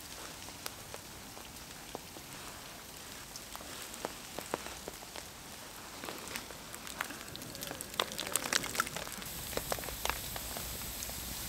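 Small campfire of split kindling crackling as it catches, with scattered sharp pops and snaps over a steady hiss, thickest about eight seconds in. The kindling is cold and damp, so the fire is slow to take hold.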